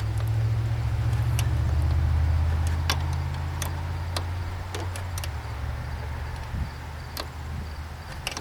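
A low engine drone that fades away over the first half, with a scattered series of sharp metallic clicks and ticks from hand-tool work.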